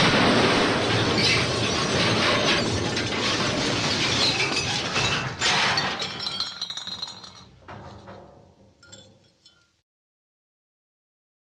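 The MGM elephant smash cartoon sound effect: a sudden huge crash of shattering glass and tumbling debris that goes on for about five seconds, then thins into scattered clinks and rattles of falling pieces and dies away about nine to ten seconds in.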